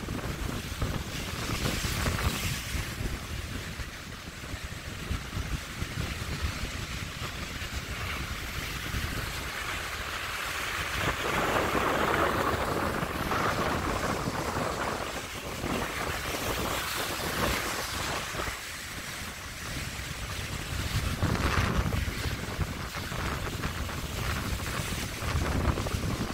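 Rough sea surf: waves breaking and washing in, swelling louder around the middle and again near the end, with gusting wind rumbling on the microphone.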